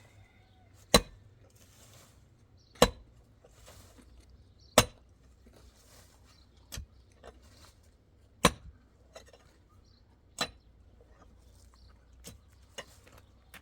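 A series of sharp, loud strikes, about one every two seconds, with fainter knocks and clinks between them.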